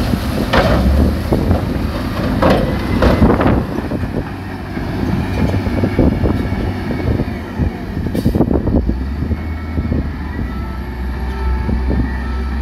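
Diesel engine of heavy earth-moving machinery running steadily, with repeated sharp knocks and clatter of rock, the loudest few in the first four seconds.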